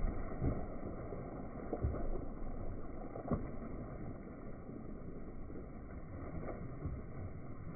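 Water gushing out of a large corrugated plastic pipe into a pond, splashing steadily as it unloads small channel catfish, with a few sharper splashes.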